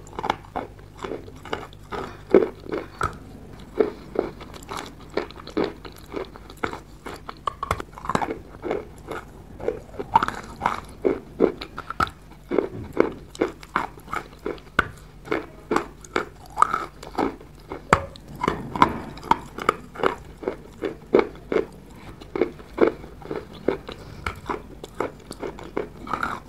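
Wet chalk being bitten and chewed: soft, slushy crunches, a couple of crackly crunches a second.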